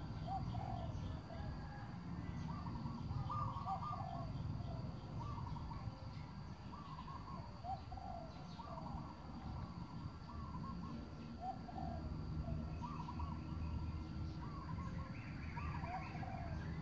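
A bird calling over and over in short phrases of a few quick notes, repeating every couple of seconds, over a steady low rumble.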